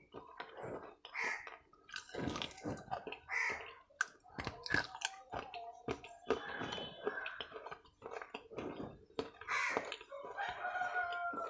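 Close-up crunchy chewing and biting of hard, brittle pieces in the mouth, in quick irregular crunches. A rooster crows in the background near the end.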